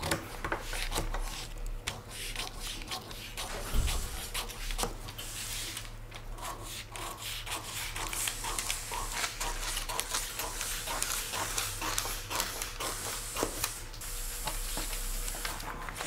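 Scissors cutting through a paper sewing pattern along the centre-front fold line, a dense run of snips mixed with paper rustling.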